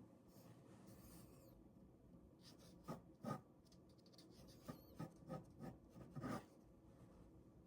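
Ballpoint pen drawing on paper: faint, short scratchy strokes in an irregular run, a few louder ones near the middle and toward the end.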